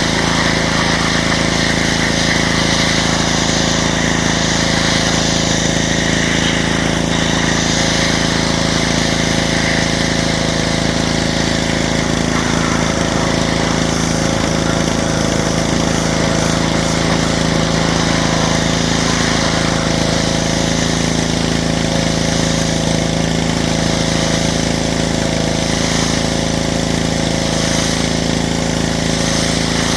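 Pressure washer's small engine running at a steady speed, with no change in pitch or level.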